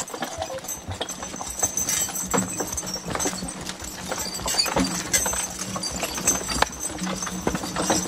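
A team of draft horses walking past while pulling a wheeled logging cart, their hooves falling irregularly on a dirt trail.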